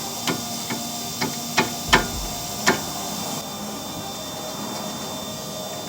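About six sharp metallic knocks and clicks in the first three seconds, the loudest about two seconds in, as a disc brake caliper is fitted back over new pads and rotor, over a steady background hum.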